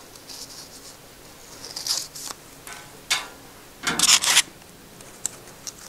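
Paper slips rustling and rubbing as they are handled, in short scrapes about two and three seconds in and a louder, longer rustle about four seconds in.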